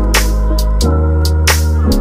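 Background music: an electronic beat with a deep sustained bass, steady synth tones and sharp percussion hits.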